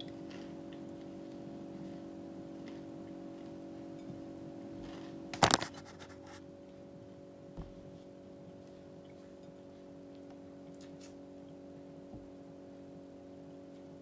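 Steady low hum of a small room, broken about five seconds in by one brief, loud knock, with a few faint ticks afterwards.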